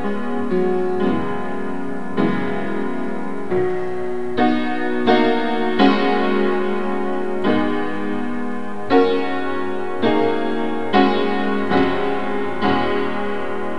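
Piano-voiced keyboard playing a slow practice piece: chords struck about once a second, each let ring and overlapping the next.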